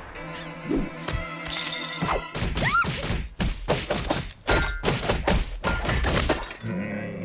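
Cartoon slapstick sound effects: a rapid run of knocks, thuds and crashes from about two seconds in until near the end, over background music.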